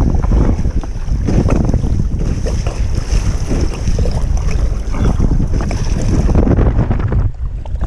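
Strong wind buffeting the microphone with a loud, steady rumble over choppy sea. Waves slap and splash against a kayak's hull as it is paddled through the chop, with the wind easing briefly near the end.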